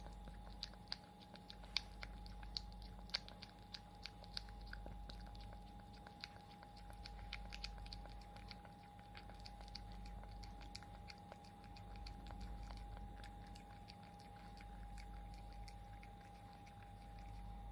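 Scottish Fold kitten licking and smacking at a Churu paste treat: a quick run of small wet clicks, thickest in the first half and thinning out later. A faint steady whine sits underneath.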